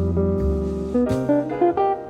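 Background music led by guitar, plucked notes over a bass line, changing every half second or so.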